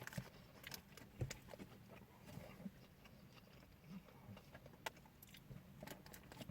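Near silence with faint, irregular mouth clicks and soft chewing as a person eats a chicken burger.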